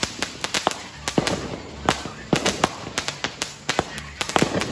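Consumer aerial fireworks going off in quick succession: rapid, irregular sharp bangs and crackles, several a second, from shells bursting overhead.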